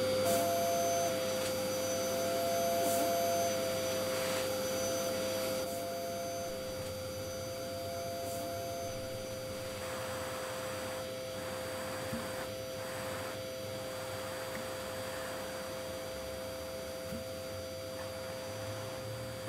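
Canister vacuum cleaner running with a steady whine.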